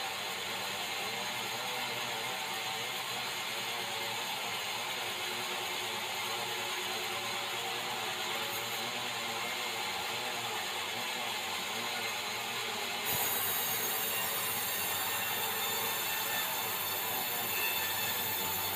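Sawmill band saw running and cutting through a red meranti beam, a steady machine hum under the hiss of the blade in the wood. About two-thirds of the way in the sound turns abruptly louder and brighter.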